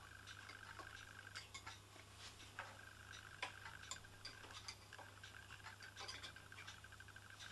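Faint, irregular clicks and light metallic taps as a small brass oscillating-cylinder engine is oiled with a thumb-pump oil can and handled. Under them is a faint, steady high whine with a fast flutter that breaks off now and then.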